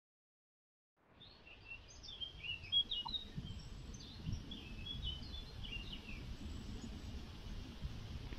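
Small birds chirping in many quick, short calls over a low rumble of wind on the microphone, the sound starting about a second in after silence.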